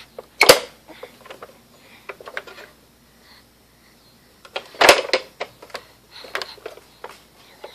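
A baby's hands tapping and pushing at a plastic pop-up button toy: scattered light clicks and taps, with two sharp louder clacks, one about half a second in and one about five seconds in.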